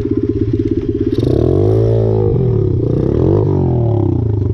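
Pit bike engine idling with a pulsing beat, then revved up and back down twice, settling back to idle near the end.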